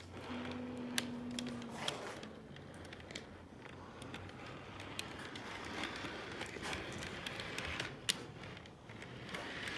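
Model train running along layout track: irregular clicks and rattles of the wheels and cars on the rails, with a short steady hum near the start.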